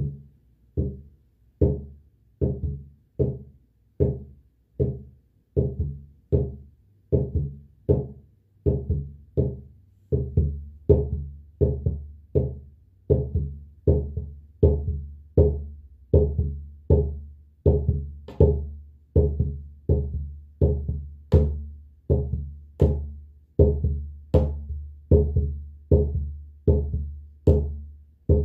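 Shamanic drumming: a deep drum struck at a slow, steady beat, a little over one stroke a second, each stroke ringing out before the next.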